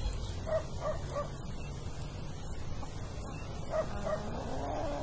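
A dog yipping in short, quick calls, two or three at a time, over a low steady rumble.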